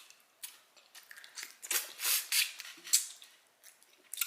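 Close-up chewing and mouth smacking while eating, a string of short, sharp wet clicks and smacks at an irregular two or three a second.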